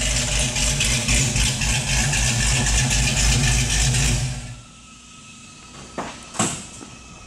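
1968 Chevrolet Camaro's LS3 V8 engine idling with an uneven, pulsing exhaust rumble, then shut off about four seconds in. Two short knocks follow near the end.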